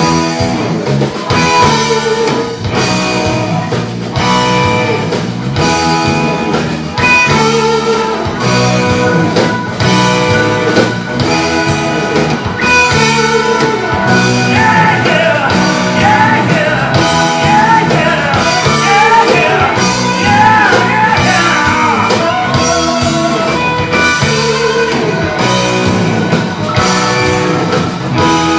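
Live blues-rock band playing: electric guitars over Hammond organ, bass guitar and drums, with a lead line of bent, wavering notes in the middle.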